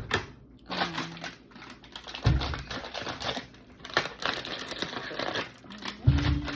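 Strawberries being washed and handled in a bowl: irregular taps and clatter, with two heavier thumps about two and six seconds in.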